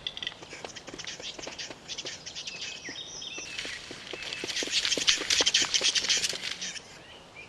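Bird calls: a dense stream of dry clicks and short chirps, loudest and busiest in the middle stretch.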